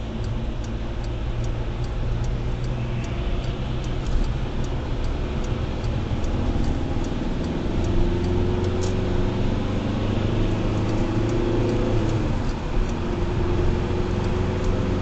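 Car engine and tyre road noise heard from inside the cabin while cruising on a motorway, the engine pitch rising in the middle and easing back near the end. A faint, even ticking runs along, about two or three ticks a second.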